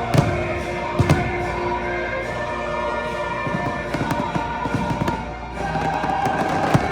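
Fireworks bursting over an orchestral show soundtrack: a couple of loud bangs near the start, then a quicker run of pops and booms toward the end, with the music playing throughout.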